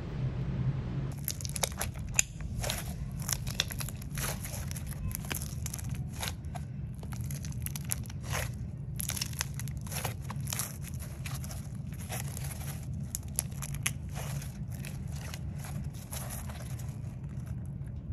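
Homemade glue-and-liquid-starch slime being squeezed and kneaded by hand, giving a dense, irregular run of wet clicks and crackly pops as small air bubbles trapped inside burst. It starts about a second in, over a steady low hum.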